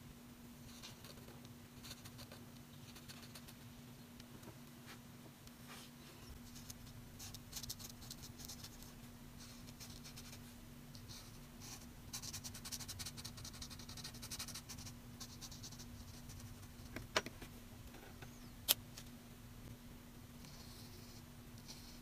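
Felt-tip marker scratching and rubbing on watercolour paper in faint, uneven strokes, busiest about halfway through. Two sharp clicks a second and a half apart come late on.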